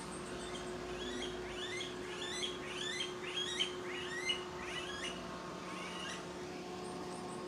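A bird chirping in a quick series, about ten short calls over some four seconds, starting about a second in, over a steady low hum.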